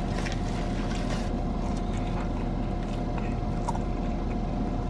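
Steady low hum of a car idling, heard from inside the cabin, with crinkling of a foil sandwich wrapper and biting and chewing. The crinkles are thickest in the first second and come now and then after that.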